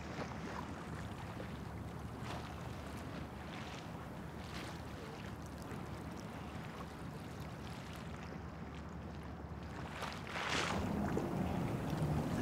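Sea water lapping and splashing against a stone quay in soft irregular swells over a low steady rumble. The splashes grow louder about ten seconds in.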